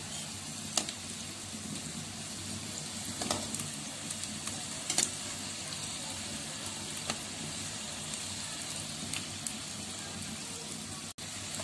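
Stuffed wheat-flour snack pockets deep-frying in hot oil, a steady sizzle, with a few light clicks as a perforated skimmer knocks against the pan while turning them.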